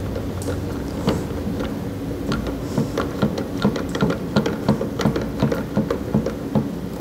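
Plastic pipe union nut being screwed on by hand, its threads clicking and rubbing at about three clicks a second in the second half, over a steady mechanical hum.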